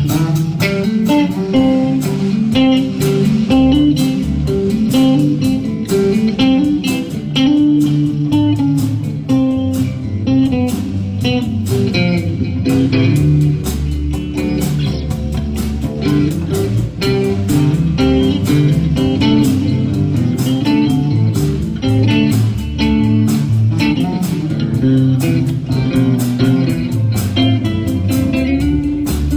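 Live band playing an instrumental passage in a blues-rock style, with electric guitar and bass guitar over acoustic guitar and a steady drum beat.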